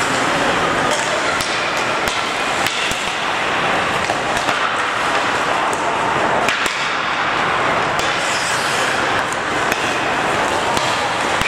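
Ice hockey play in a rink: a steady din of skating and voices, with scattered sharp clacks of sticks on the puck.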